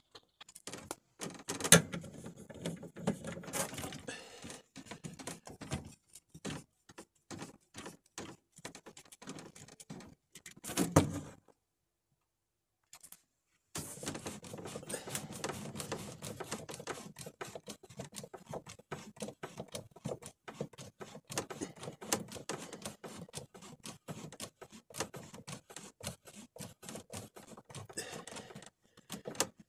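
Plastic sink-drain fittings being handled and screwed together by hand: a run of quick small clicks, knocks and scrapes of plastic threads and a glove rubbing. It stops for about two seconds midway, then carries on.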